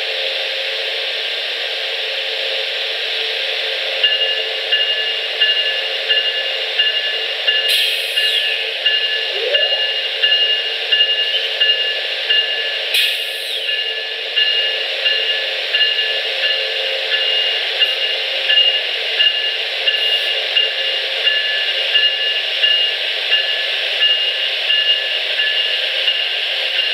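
Steady hiss, and from about four seconds in a railroad warning bell ringing evenly at about one and a half strikes a second, signalling a train about to move through the crossing. There are two sharp clicks in between.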